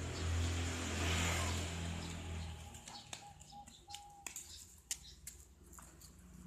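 Zebra doves (perkutut) cooing: a run of short, clear notes of one pitch about three seconds in, with scattered sharp clicks. A low rumble fills the first few seconds.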